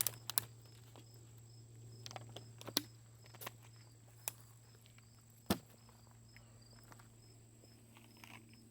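Crickets chirping in a steady, regular pulse, with a few sharp clicks and knocks, the loudest about five and a half seconds in.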